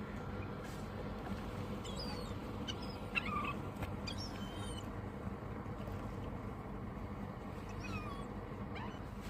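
Seagulls calling: several short cries that slide down in pitch, in small clusters, over a steady low background rumble.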